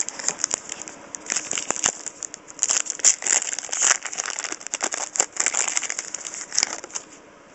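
Crinkling and crackling of a trading-card pack wrapper being handled and opened, a quick run of rustles and small clicks that dies away near the end.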